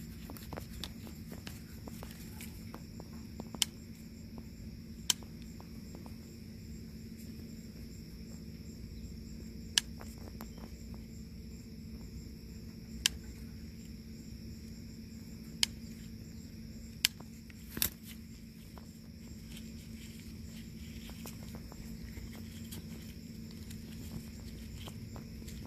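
Garden scissors snipping thyme stems, seven sharp clicks spread unevenly through the stretch. Behind them is a steady high chirring of insects.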